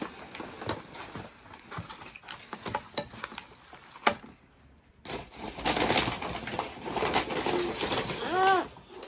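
Light clicks and taps of takeaway food packaging being handled, with one sharper click about four seconds in. After a short lull comes a louder, busier stretch of noise, with a brief rising-then-falling call near the end.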